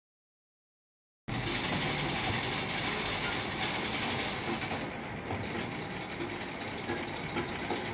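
High-speed industrial single-needle sewing machine stitching shirt fabric: a steady, fast mechanical rattle that starts about a second and a half in, after a moment of silence.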